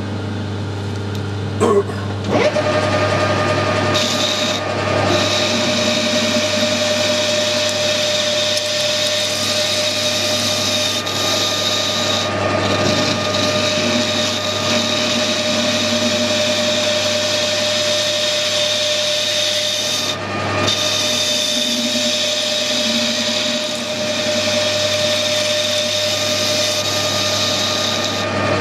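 Metal lathe starting up about two seconds in after a couple of clicks, then running steadily with a whine from its drive while an insert tool cuts the mild steel bush.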